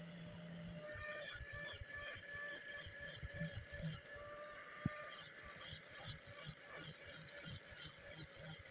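Hand file or rasp scraping back and forth on a steel knife blade, in short even strokes about three a second.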